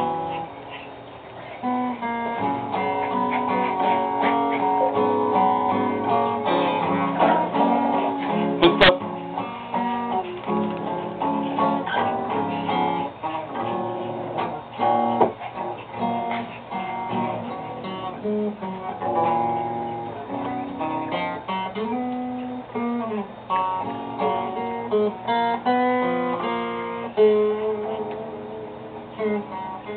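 Acoustic guitar music, plucked and strummed notes in a steady run, with one sharp click about nine seconds in.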